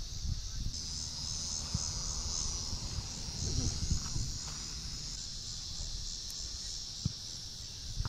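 A steady, high-pitched insect chorus that grows louder about a second in, over a low rumble.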